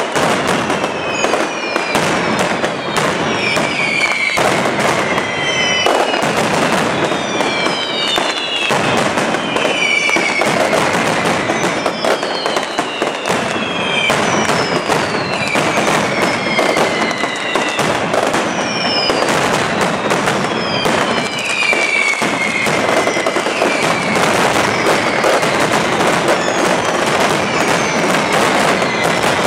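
Mascletà: strings of firecrackers and masclets going off in a dense, continuous barrage of cracks and bangs, with repeated whistles falling in pitch over it every second or two.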